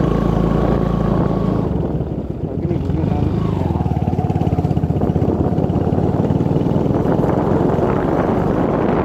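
Motorcycle engine running as the bike rides along a rough dirt-and-gravel road. The engine note drops briefly about two seconds in, then picks up again with a steady, rapid pulsing.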